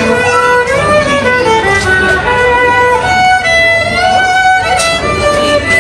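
Solo violin played up close, a melody of held notes joined by slides in pitch.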